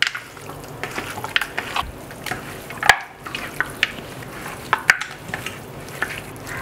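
Hands rubbing turmeric and salt into raw mutton pieces on a glass plate: irregular wet squishing and slapping of the meat, with a few sharper clicks.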